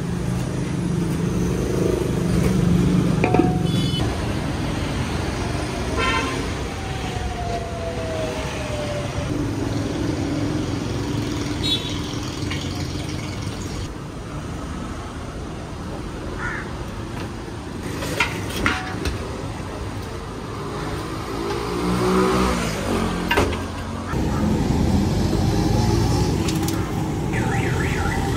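Busy street traffic: engines running steadily, with a few short horn-like tones and a repeating warbling tone near the end.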